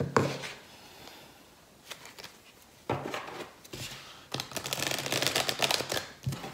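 A single sharp knock near the start as a deck is set down. Then, from about three seconds in, a tarot deck is split into two halves and riffle-shuffled on the tabletop, giving a fast crackling flutter of cards interleaving.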